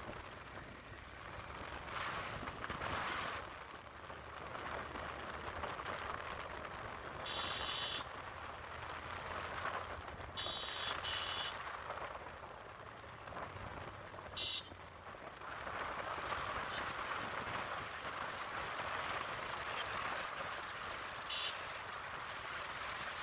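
Motorcycle on the move: steady wind rush over the microphone with a low engine hum underneath. Several short, high-pitched horn beeps sound at intervals through it.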